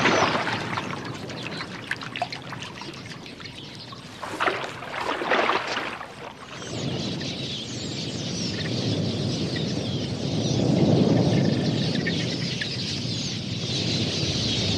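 Water splashing as a crocodile lunges at a flock of queleas drinking at the water's edge, with louder bursts of splashing at the start and around five seconds in. From about seven seconds a steady rush of many small birds' wings and chirps swells up.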